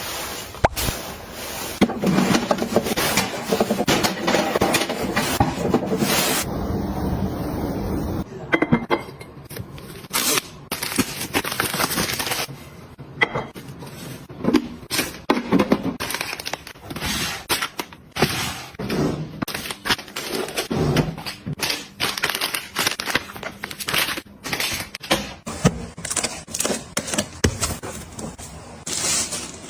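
Household items being handled and set down, with many short clicks, taps and knocks and some crinkling and scraping, in a close-miked organizing ASMR style. The character of the sound changes around a quarter of the way in.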